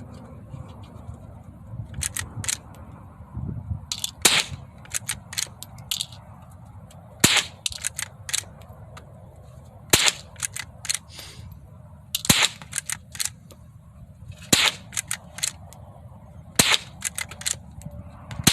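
.22 Rossi rifle being fired six times at a steady pace, about one sharp crack every two and a half seconds, with fainter cracks in between.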